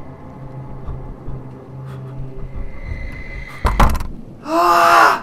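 Horror sound track: a low, steady suspense drone, then a sudden loud bang a little over three and a half seconds in, then a shrill scream that cuts off abruptly at the end.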